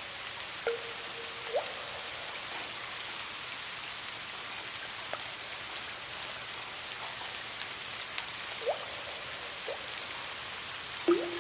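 Steady soft rain hiss with water drops falling at irregular intervals, several of them plinking into water with a quick rising pitch and a short ringing tone, the loudest near the end.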